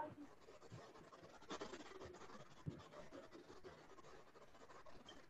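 Near silence: faint room tone on a video-call line, with a brief faint scratching about a second and a half in.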